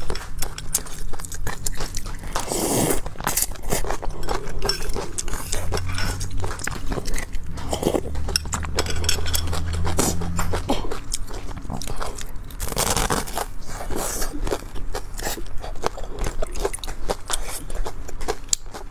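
Close-miked eating sounds: chewing and mouth noises with many small clicks, a spoon scraping and clinking in a ceramic soup bowl, and a couple of longer slurps, near 3 s and 13 s.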